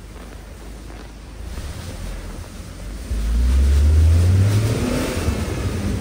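Tata Altroz car engine revving up, its note rising in pitch for about two seconds from about three seconds in, over a steady low rumble as the car works along a rough track.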